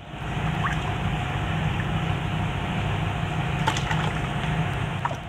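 Electric water pump motor running with a steady low hum, with a couple of faint taps or splashes near the end.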